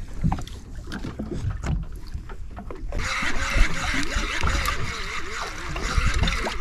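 Conventional slow-pitch jigging reel being worked by hand, the spool thumbed and then the handle cranked. A steady whirring hiss starts abruptly about three seconds in, over low rumble and light clicks.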